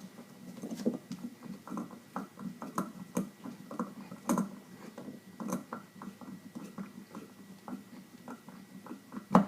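Small irregular clicks and taps of a screwdriver tightening the screw that holds the knob on a shampoo bowl faucet, with a sharper click near the end.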